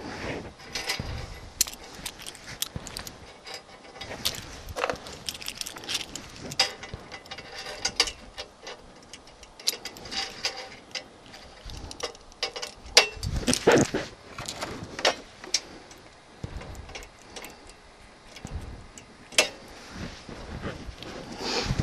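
Scattered light metallic clicks and clinks as short metal rods are set on a steel checker plate and clamped with locking pliers, with a denser clatter about thirteen seconds in.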